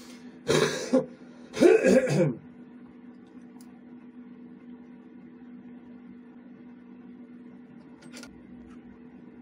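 A person clearing their throat twice, two short loud bursts about a second apart, over a steady low hum. A faint click comes near the end.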